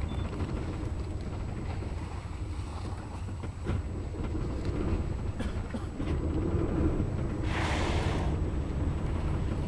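Steady low rumble of a boat at sea, with wind buffeting the microphone. About seven and a half seconds in comes a short hissing whoosh lasting under a second.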